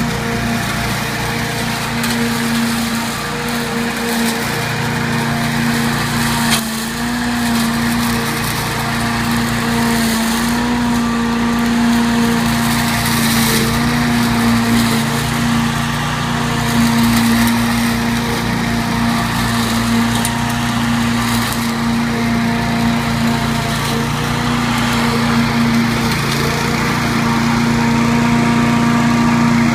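Walk-behind rotary lawn mower with a Briggs & Stratton 850 I/C single-cylinder four-stroke engine running steadily at working speed while mowing grass.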